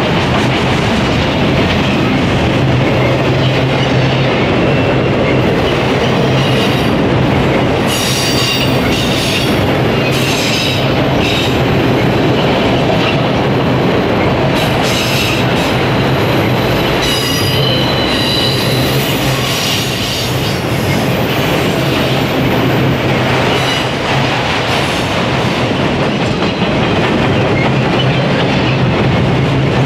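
Freight train of autorack cars rolling past close by: a loud, steady noise of steel wheels on rail. High wheel squeals come and go through the middle of the passage.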